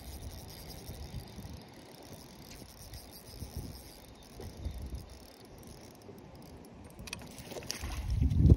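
Wind buffeting the microphone: an uneven low rumble with a hiss above it, swelling into a strong gust near the end.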